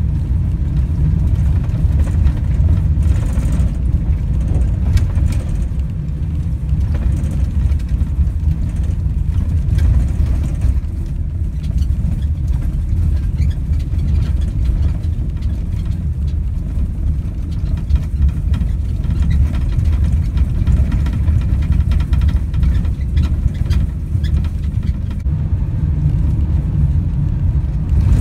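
Van driving on a gravel road, heard from inside the cab: a steady low rumble of engine and tyres on the loose surface, with a few faint ticks scattered through.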